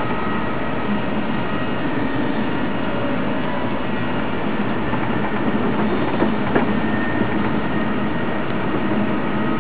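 Steady running noise heard from inside a moving Amtrak Acela electric high-speed train: an even rush of wheel, track and wind noise, with two short clicks a little past the middle.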